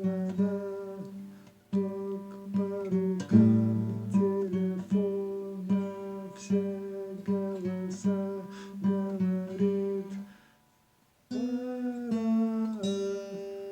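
Acoustic guitar picking out a song's vocal melody one note at a time, many repeated notes moving in small semitone steps, with a short break about ten seconds in.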